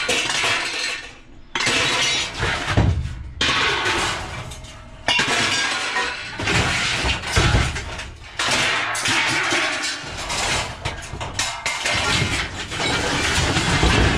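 Scrap metal crashing and clattering as pieces are thrown down onto a scrap heap, in repeated loud bursts with short pauses between them.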